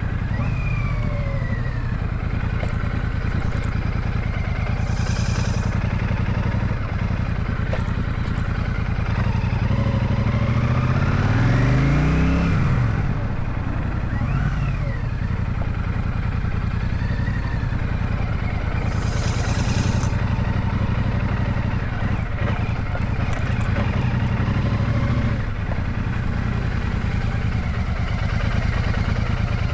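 Royal Enfield Shotgun 650 motorcycle's parallel-twin engine running steadily while riding, its pitch rising and then dropping about ten to thirteen seconds in.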